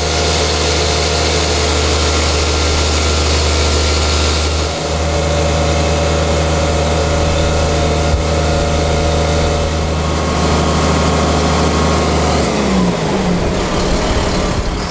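Truck-mounted crane's engine running steadily with a strong low hum while hoisting a load. Near the end the engine speed changes and the pitch shifts.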